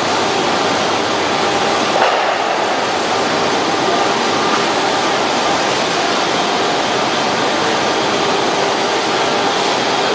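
Gravure printing machine running at speed: a steady, even rush of noise with faint steady hum tones, and a single short knock about two seconds in.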